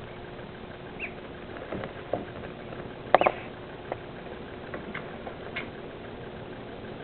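Ducklings peeping: a few short high peeps, the loudest a falling one about three seconds in, among scattered light taps of small feet and bills on the brooder floor.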